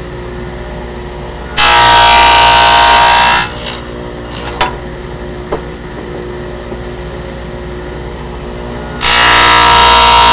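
Table saw with a 3/4-inch dado blade running steadily, cutting two finger-joint slots through a board: a loud, whining cut about a second and a half in that lasts almost two seconds, and another that starts about nine seconds in. Between the two cuts there are a few light knocks.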